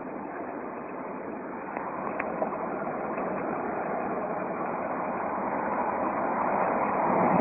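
Jeep SRT8's Hemi V8 running through a stock exhaust with the resonators deleted, a steady drone that grows gradually louder toward the end, echoing inside a road tunnel.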